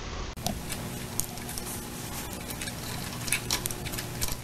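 Light, irregular metallic clicks and rattles of a mini-bike's roller chain being handled and seated in a small hand chain-breaker tool, over a faint steady low hum.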